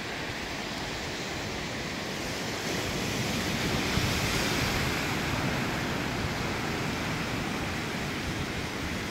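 Ocean surf breaking and washing over rocks at the foot of a sea cliff: a steady rushing wash of noise that swells about four seconds in.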